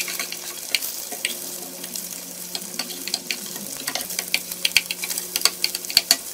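Fried eggs and sliced bitter melon sizzling in a nonstick skillet, with clicks and scrapes of a metal ladle breaking up the eggs against the pan, the clicks coming thicker near the end.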